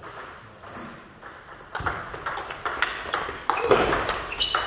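Table tennis rally: the plastic ball clicking sharply off the bats and the table in quick alternation. The clicks start about two seconds in, after the serve. There is a brief high squeak near the end.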